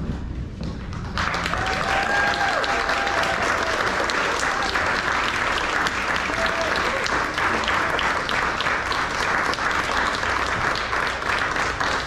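An audience applauding, starting about a second in and continuing steadily, with a few voices calling out over the clapping.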